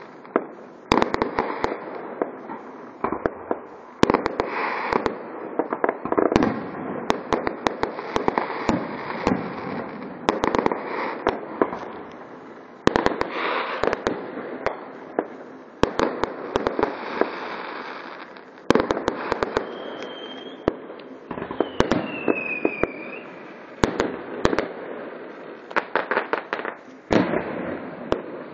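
Fireworks display: aerial shells bursting in irregular succession, sharp bangs over a continuous crackle. A short falling whistle is heard a little past two-thirds of the way through.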